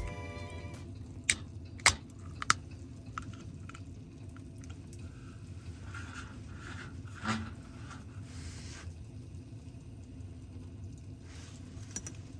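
Handling noises from camp cooking and eating: three sharp clicks in the first few seconds, then soft squishing and a single knock about seven seconds in, over a low steady background.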